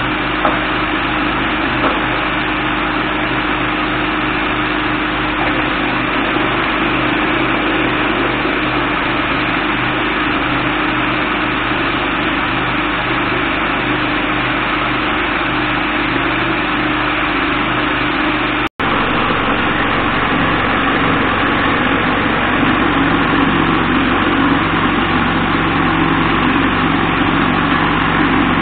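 Vibratory tumbler running steadily, churning welded steel bandsaw guide parts in abrasive media to deburr them. A brief break comes about two-thirds of the way through, after which the hum sits a little lower.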